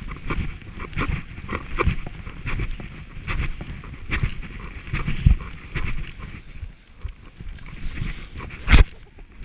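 Dog sled gliding over snow: the runners scrape and hiss steadily while the sled knocks and rattles irregularly as it jolts over bumps. There is one hard bang near the end.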